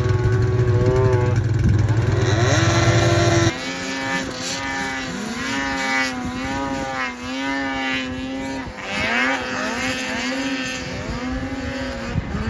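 Vintage snowmobile engine running on the trail, with a loud low rumble that drops away abruptly about three and a half seconds in; after that the engine's pitch rises and falls again and again with the throttle.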